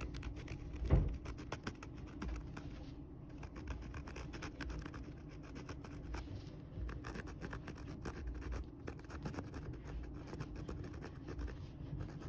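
Quick, irregular scratching and rubbing strokes of hand work on a leather shoe, with one dull knock about a second in.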